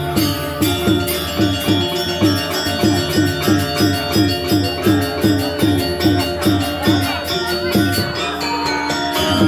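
Balinese gamelan playing a fast, steady rhythm: gongs and metallophones ringing over a repeating beat of about three strokes a second, with sharp metallic clashes over it.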